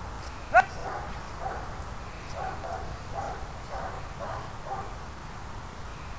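Dog barking: one sharp, loud bark about half a second in, then a string of fainter short barks, about two a second.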